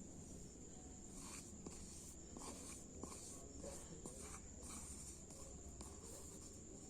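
Faint, irregular rustling and scratching from something being handled, over a steady high-pitched whine.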